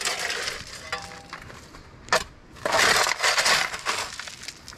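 Shovel scraping and digging into stony soil. There is a sharp knock at the start, another about two seconds in, and a longer gritty scrape about three seconds in.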